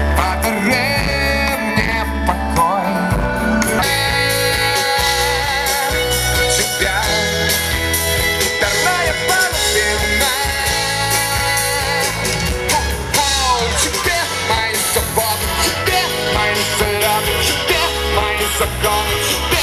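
Live rock band playing a song: electric guitar, bass guitar and drums, with a male singer's voice at times.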